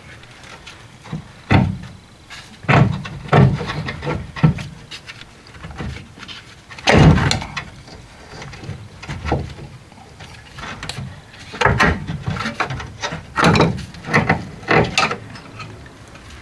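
Irregular metal knocks, clunks and scrapes as a Classic Mini's rear radius arm is worked by hand and pulled free of the subframe, with the loudest clunk about seven seconds in.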